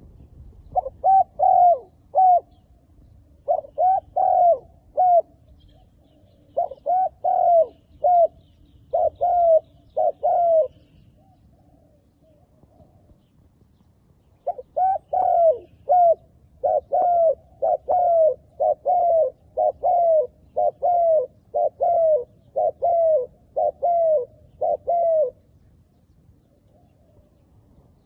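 Spotted dove cooing in short phrases of about three notes each: four phrases in the first part, a pause of a few seconds, then a longer, faster run of phrases until shortly before the end. It is a decoy's call meant to draw wild doves down.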